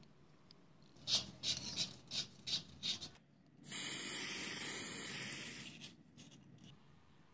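Aerosol spray-paint can: about six quick rattling shakes, then a steady spray hiss lasting about two seconds as the paint goes on.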